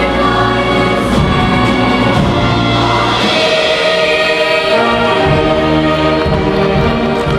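High school choir singing with concert band accompaniment, the voices and instruments holding sustained chords over a moving bass line.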